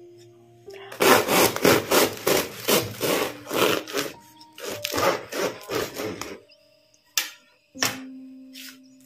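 A bread knife saws through the thin, crispy crust of a freshly baked Vietnamese baguette on a wooden board. The crust crackles and crunches at about three strokes a second, starting about a second in and stopping past the middle. Two sharp knocks follow near the end.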